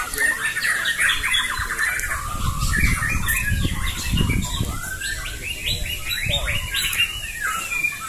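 White-rumped shamas (murai batu) singing continuously in fast, varied, overlapping phrases of chattering and whistled notes.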